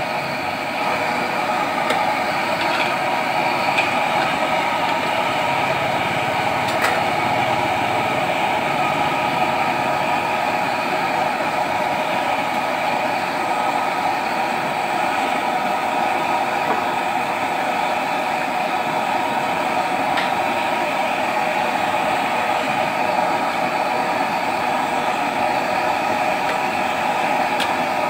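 Sliced potatoes deep-frying in a wok of hot oil: a steady sizzle and bubbling, with a few faint clicks.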